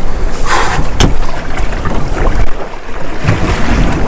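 Wind rumbling on the microphone aboard a small fishing boat, with a short rushing noise and then a sharp knock about a second in as fishing rods are shifted out of the way, and a few lighter knocks of gear after.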